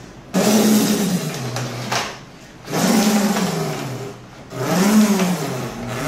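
A man's voice imitating a pull-started motor or power saw, three rising-and-falling "vrrrm" sounds, as the vacuum cleaner's power cord is yanked out hard three times.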